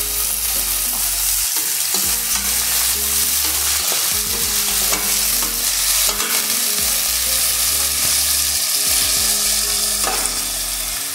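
Sliced onions, cumin and green garlic sizzling as they fry in hot oil in a metal kadhai (the tadka), with a steady hiss. A metal slotted ladle stirs them, scraping against the pan now and then.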